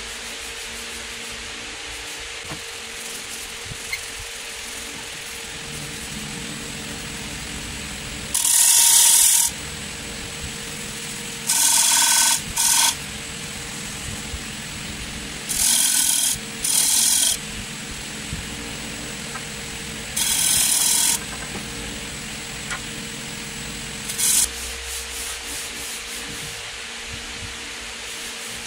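Wood lathe running with a steady hum while a bowl of wood inlaid with forged steel scrollwork is hand-sanded as it spins. About seven loud hissing sanding passes, each lasting about a second, come between roughly a third and four-fifths of the way through.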